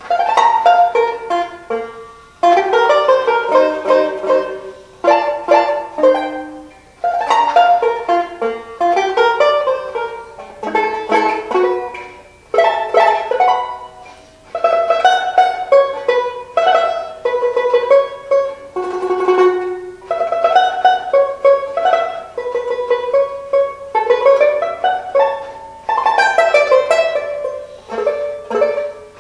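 1929 Paramount Leader tenor banjo playing a picked melody with chords in phrases of a few seconds each. The playing starts abruptly at the very beginning, after near quiet.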